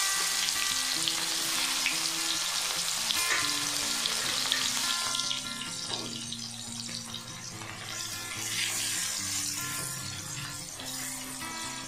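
Chopped onion sizzling hard in hot oil in a kadai, just dropped in after the garlic; the sizzle is loudest at first and dies down about five seconds in as the onion's moisture cooks off.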